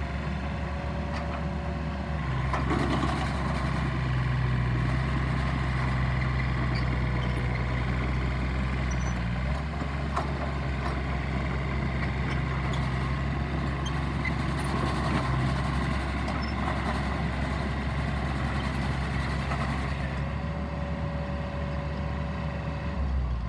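Komatsu PC38 mini excavator's diesel engine running steadily as the hydraulics work the arm and bucket in gravel; the engine note rises under load about two seconds in and eases back around ten seconds and again later. A few short knocks sound over it.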